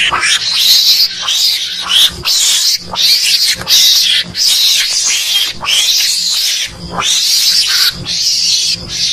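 Recorded mongoose calls played as a hunting lure: a rapid, loud series of short high-pitched calls, about two a second, repeating without a break.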